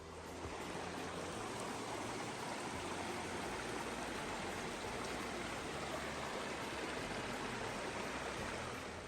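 Steady rush of flowing water from a stream, even and unbroken, cutting in at the start and stopping abruptly near the end.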